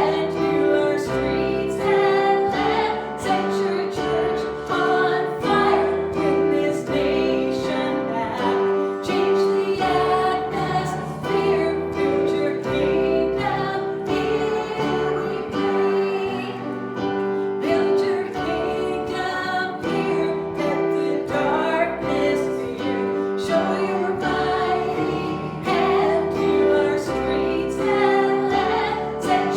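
Congregational worship music: a song with singing voices over instruments and a steady beat.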